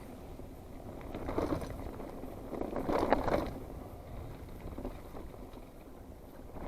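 Mountain bike rolling down a dirt trail: a rough haze of tyre and wind noise that swells twice, about a second and a half and three seconds in.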